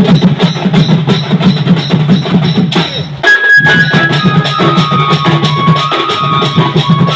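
Sambalpuri band music with drums keeping a steady beat; about three seconds in the music breaks off briefly, then returns with held melody notes over the drums.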